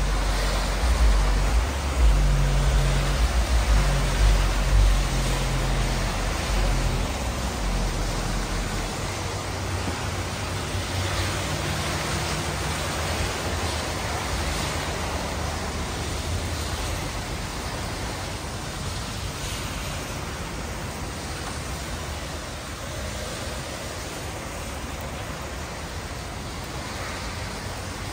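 Heavy rain falling steadily on wet pavement, mixed with the hiss of car tyres on the wet road. A low rumble fills the first several seconds, and the rain noise slowly eases.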